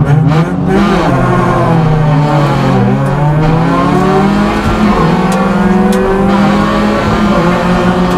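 Rally car engines heard from inside the cabin, pulling hard away from the stage start and up through the gears, the revs climbing and dropping back again and again.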